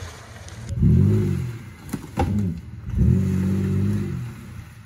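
An off-road 4x4's engine revved twice, each rev climbing quickly and held for about a second before dropping back. Two sharp knocks come between the revs.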